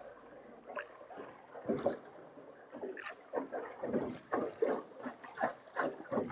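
Small rowboat moving on the river: water splashing and lapping in quick, irregular pulses.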